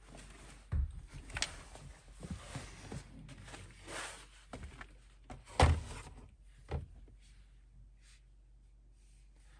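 Scattered knocks and clicks of hand tools and plastic interior trim being handled inside a pickup truck's cab, with one louder knock a little past halfway.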